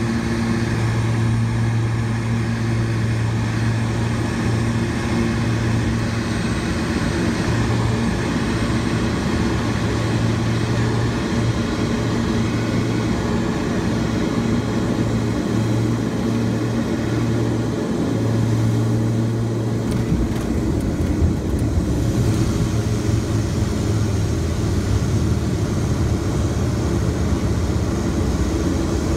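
Cockpit of a Beechcraft King Air 200: the twin turboprop engines and propellers give a steady drone on final approach. About two-thirds of the way through the steady tone breaks off with a few knocks, and a rougher rumble follows as the aircraft touches down and rolls along the runway.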